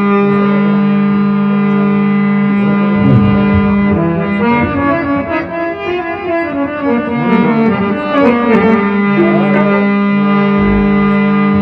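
Instrumental interlude of a devotional bhajan: a harmonium playing a melody over a held low note, with no singing.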